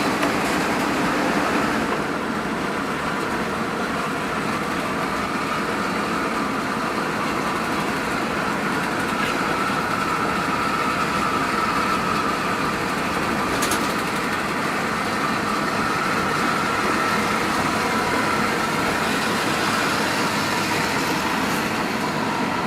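Steady cabin noise of a Hino RN285 coach running, with engine and road noise mixed and a faint steady whine. There is a brief click about halfway through.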